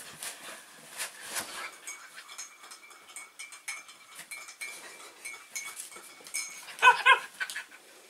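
Shetland sheepdog whining in a thin, high, steady tone for several seconds, then two short, loud yips near the end. Light clicks and rustles from the dogs moving on the wooden floor and dog bed throughout.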